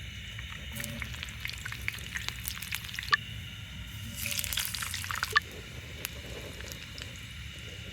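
Sambussa frying in hot cooking oil: scattered pops and crackles over a steady sizzle, growing denser for a moment about four seconds in.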